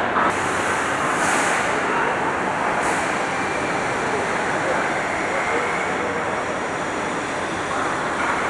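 Steady machine noise with no clear pitch, with short hisses about a second in and again near three seconds.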